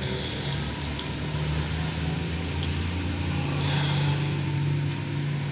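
An engine running steadily with a low hum that swells slightly about four seconds in, with a few light clicks.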